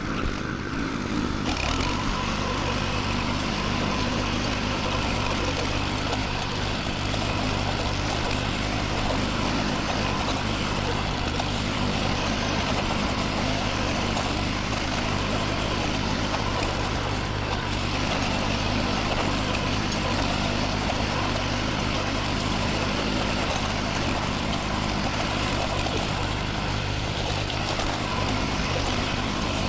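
Farm machine engine running steadily at a constant speed while tilling vineyard soil.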